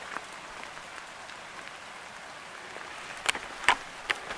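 Steady rain falling, an even hiss, with three or four sharp taps near the end.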